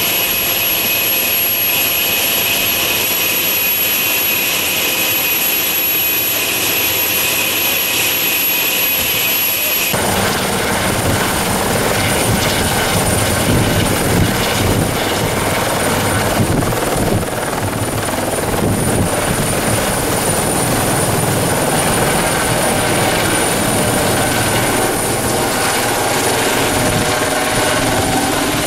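Eurocopter EC120B helicopter: a steady high turbine whine for about ten seconds, then a sudden change to the full rotor and turbine noise of the helicopter hovering just above the ground and flying overhead, its pitch sliding slowly near the end.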